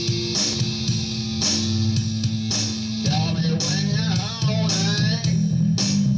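Grunge-style rock music: electric guitar and bass over a steady drum beat, with a wavering lead melody line coming in about halfway through.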